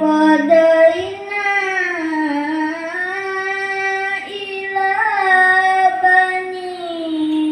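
A boy reciting the Quran in the melodic tilawah style: long held notes with winding ornaments, the pitch climbing and dipping, and a brief break about four seconds in.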